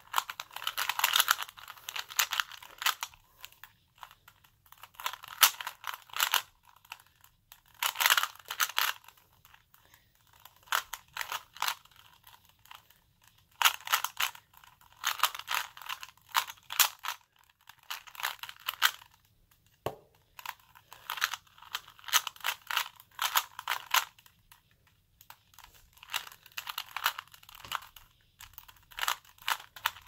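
A plastic 3x3 Rubik's cube being turned quickly by hand: its layers click and rattle in rapid runs of moves lasting a second or so, with brief pauses between runs.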